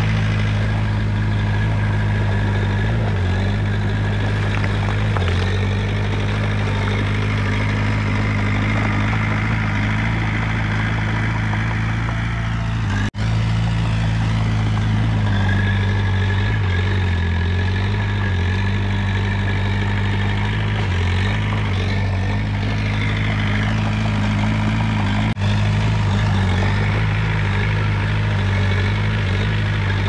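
Komatsu D20 bulldozer's diesel engine running steadily under work, its drone wavering slightly with load. The sound cuts out for an instant twice, about a third of the way in and again near the end.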